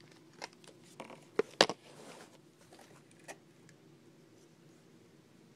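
A few scattered clicks and knocks from handling a pocket knife and its packaging while taking it out of the box, the loudest about a second and a half in, the rest quieter.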